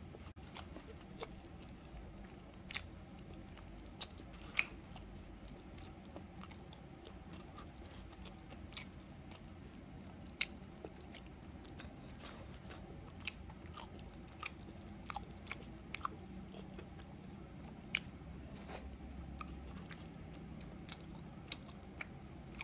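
A person chewing and eating tteokbokki rice cakes with chopsticks: soft mouth and chewing sounds with irregular sharp little clicks scattered through, over a steady low hum.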